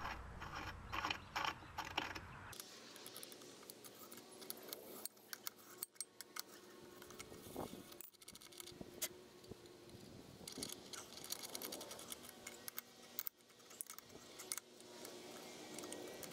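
A tap being turned into the threaded end of a steel exhaust pipe clamped in a vise: faint metal scraping and light clicks as the tap chases the threads and clears burrs from the saw cuts. Much of it is fast-forwarded.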